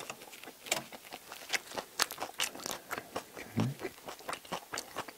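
Crusty toasted baguette crunching as it is bitten and chewed close to a clip-on microphone: a quick run of sharp, crisp crunches.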